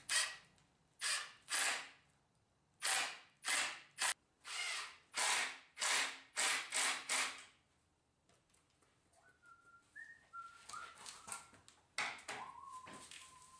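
Cordless drill driving screws into wood in about a dozen short bursts, fastening a caster. Then quieter clicks and a thin, wavering high tone.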